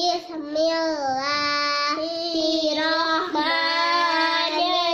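A young child's high voice chanting Quran recitation in a sustained melodic style, holding long notes with only brief breaks.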